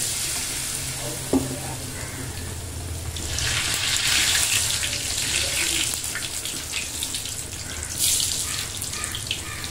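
Bread pakoras deep-frying in hot oil: a steady crackling sizzle that gets louder twice, about three and a half seconds in and again near the end, as the pieces are turned with a wire strainer. There is a single sharp click about a second in.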